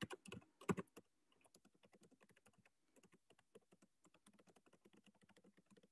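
Faint computer keyboard typing: a quick, uneven run of key clicks, a little louder in the first second.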